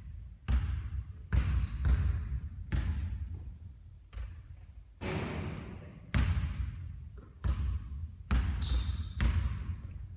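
Basketball bouncing on a court: a string of heavy thuds about once a second, each dying away slowly.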